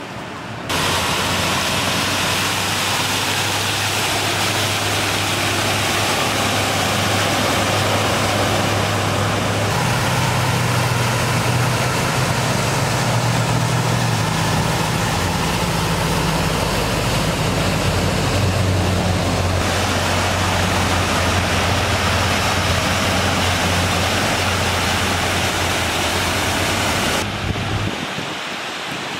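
Vehicles wading through street floodwater: a steady rush of water over a low, even engine idle hum. The sound shifts abruptly a few times where the footage is cut.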